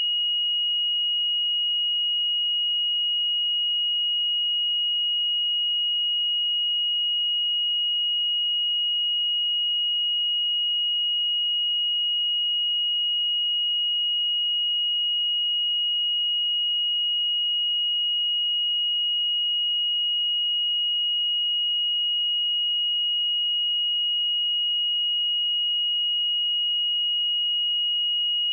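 A steady, unbroken 2888 Hz sine-wave test tone: one pure, high-pitched note held at a constant level, used for checking speakers and headphones.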